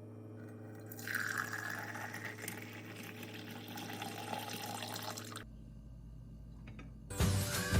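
Water being poured into a vessel: a steady splashing stream for about four seconds that stops, over a low steady hum. Music comes in loudly near the end.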